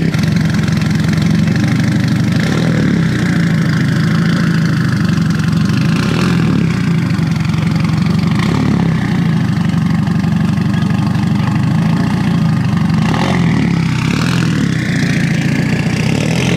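Nissan Silvia S15 track car's engine running loudly at a steady idle as the car creeps away, with a rising whine near the end.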